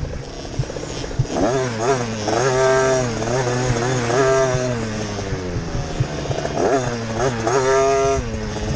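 Dirt bike engine heard onboard, revving up and easing off repeatedly as the throttle opens and closes; the pitch climbs steeply about a second in, holds high, dips around the middle, then climbs and holds high again near the end.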